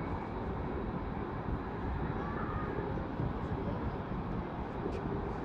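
Steady low rumble of wind and distant city noise, with no distinct events.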